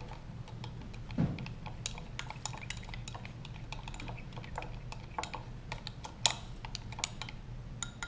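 A plastic spoon stirring powdered milk and water in a small glass beaker, giving irregular light clicks and taps against the glass, with a dull knock about a second in and a sharper tap near the end.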